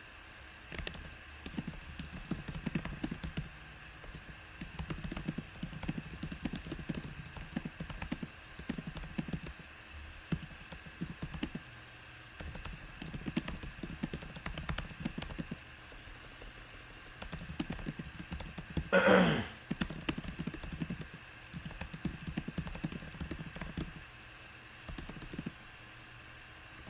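Computer keyboard typing in irregular bursts of clicks over a faint steady high hum, with one louder knock about two-thirds of the way through.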